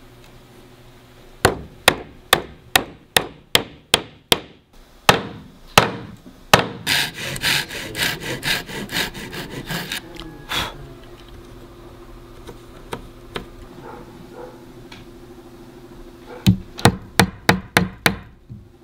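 A hammer knocking on wood as wooden joinery pieces are tapped together: a string of about a dozen sharp, evenly spaced knocks, then a fast run of lighter taps, and after a pause a quick run of knocks near the end.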